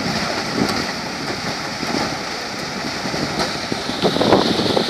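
Rice combine harvester engine running steadily, with wind buffeting the microphone.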